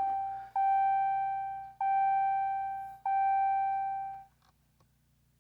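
Car's warning chime: a bell-like tone with overtones, struck about every 1.2 seconds and fading after each, repeating three times before it stops a little past the middle. A couple of faint clicks follow.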